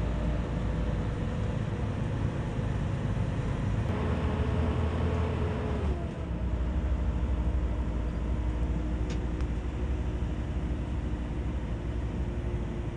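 A heavy dump truck driving on a rough dirt haul road, heard from inside its cab: a steady engine drone over low rumble. The engine note drops in pitch about six seconds in.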